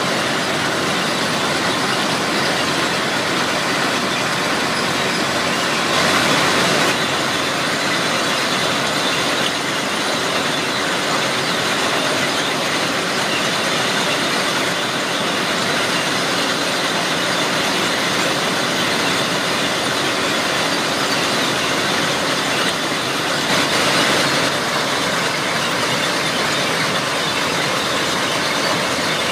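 Plasser & Theurer PM 1000 URM track formation rehabilitation machine at work: a loud, steady, dense mechanical din. It swells briefly about six seconds in and again about five seconds before the end.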